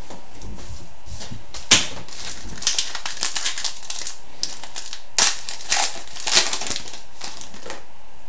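Trading cards being handled and flipped during a pack opening: a run of rustles and sharp clicks, with two louder snaps about two seconds and five seconds in.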